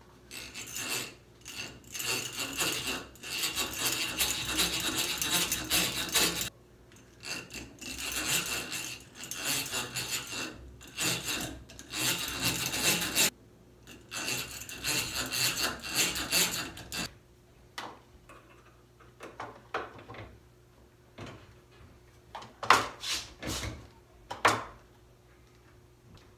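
Hand tools working into wood as a cabinet door is mounted on its hinges: three long stretches of steady grinding and rubbing, then a series of separate knocks and clicks in the last third.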